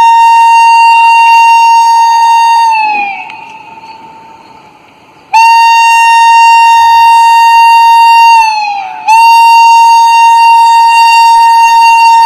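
WAP-5 electric locomotive's air horn sounding three long, single-pitched blasts. The first dies away about three seconds in; after a pause the second starts abruptly, and the third follows a moment after it ends. Each blast sags in pitch as it fades.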